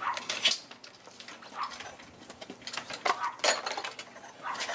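Metal tools clinking and clattering: a series of short, sharp metallic clinks, with no steady rhythm.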